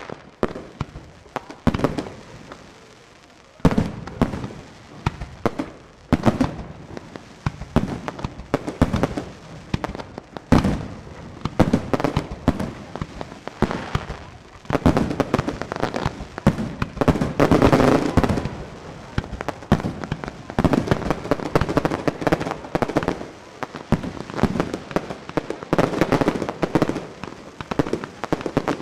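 Professional aerial fireworks display, shells of up to 4 inches: a run of launches and sharp bursting bangs that grows thicker and overlapping in the second half, with a dense stretch of crackling about halfway through.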